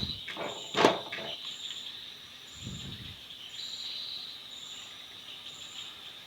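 Insects chirping steadily, with a higher chirp repeating about once a second. A sharp knock comes a little under a second in, among a few softer scrapes, with a short low rustle near the middle.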